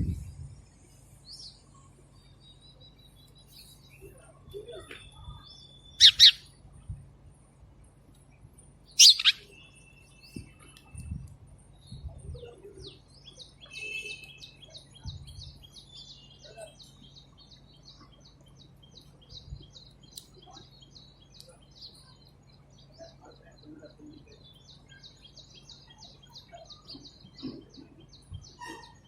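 Wild songbirds chirping and singing, with two loud, sharp calls about six and nine seconds in, followed by a long, fast, high trill of rapidly repeated notes through the second half, over a faint low hum.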